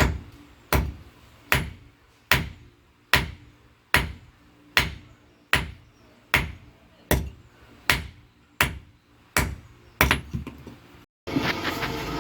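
Blacksmith's hand hammer forging a steel rebar tong blank: about fourteen steady, evenly spaced blows, roughly one every 0.8 seconds, each with a short metallic ring. Near the end the blows stop and a denser clatter follows.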